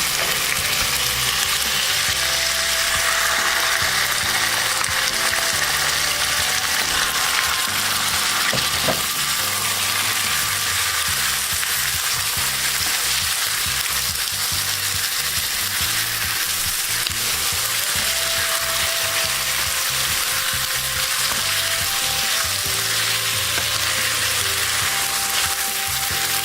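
Chicken pieces frying in hot oil in a pan, with a steady sizzle.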